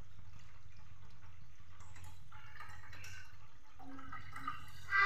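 Water pouring in a thin stream from a steel vessel into a pan of milk and vermicelli, trickling and splashing over a steady low hum. A brief louder sound comes near the end.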